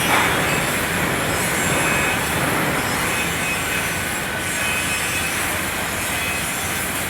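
Electric arc welding: the arc's noise runs loud and steady with no pauses.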